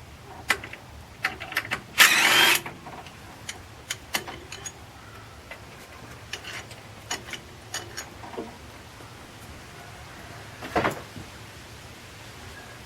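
A handheld power tool runs in a short burst about two seconds in, loosening a bolt. Scattered metallic clicks and clinks of tools follow, with a knock near the end.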